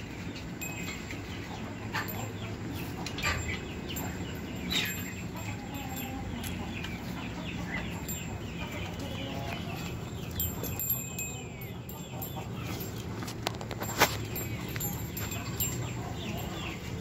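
Many short bird calls and chirps in the background, with a few sharp clinks as goat kids feeding from a steel bowl knock against the metal, the loudest about 14 seconds in.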